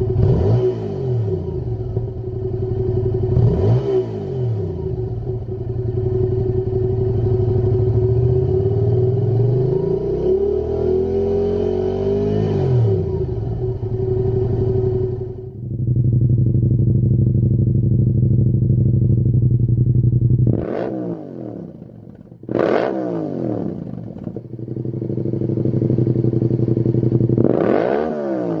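Yamaha MT-07's 689 cc parallel-twin engine revved on a stand. It first runs through the standard silencer, with two quick blips and a longer rev about ten to thirteen seconds in. After a cut about halfway, it idles through a Lextek GP1 aftermarket silencer, with three sharp blips in the second half.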